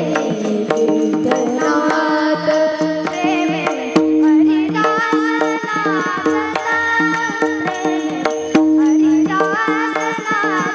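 Varkari bhajan music: a steady drone under a gliding, wavering melody, with hand-drum strokes and sharp percussive clicks keeping the beat.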